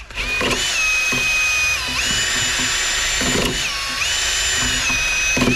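An electric drill spinning a wire brush against a corroded battery terminal. Its whine steps up in pitch about two seconds in, drops back after three and a half seconds, rises again at four seconds and drops again near the end.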